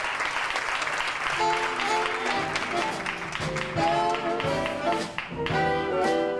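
Audience applause for about the first second and a half, giving way to walk-on music from an instrumental ensemble playing a run of melody notes.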